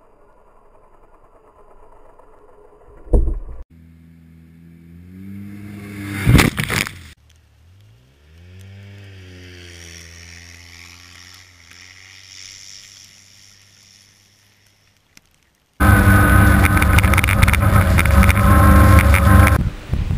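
Polaris RZR side-by-side's engine revving in a run of short clips, its pitch climbing and falling, with a sharp thump about three seconds in and a loud rushing burst a few seconds later. Near the end it is much louder and rougher, the engine running hard close to the microphone.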